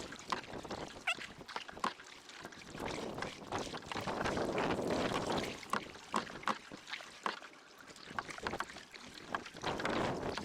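Kayak paddling on calm water: light, irregular splashes and drips.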